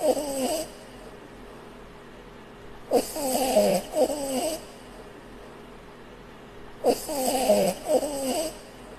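A sleeping puppy snoring: two wavering snores about four seconds apart, each lasting about a second and a half and opening with a sharp catch, with the tail of an earlier snore at the very start.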